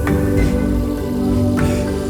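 Background music of held, sustained tones, with a few light struck notes.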